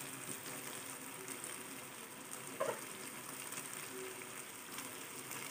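Quail pieces in a wet masala gravy sizzling and simmering steadily in a pan on the stove, faint and even.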